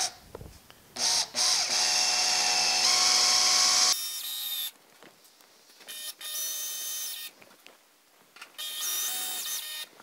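Cordless drill/driver driving small screws through a sheet-steel patch panel into the door's base metal, running in several bursts: a long, loud run starting about a second in, then shorter, quieter runs with pauses between.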